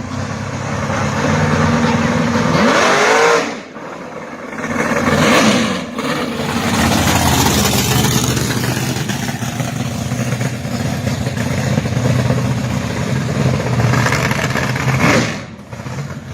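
Car engine running and being revved, rising in pitch twice in the first six seconds and dropping back sharply after each rise, then held at steady revs before falling off again near the end.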